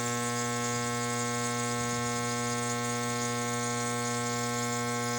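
Compressor nebulizer running: a steady electric buzz with a hiss over it, even in pitch and level.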